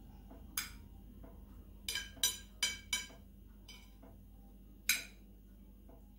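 Metal spoon clinking against a ceramic dinner plate while scooping rice: about seven sharp clinks, each with a brief ring. Four come in a quick cluster around the middle, and a louder single clink comes about five seconds in.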